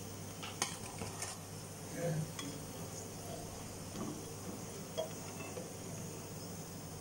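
Perforated steel skimmer clinking several times against the frying pan and a steel plate as fried puffs are lifted out, over hot oil sizzling.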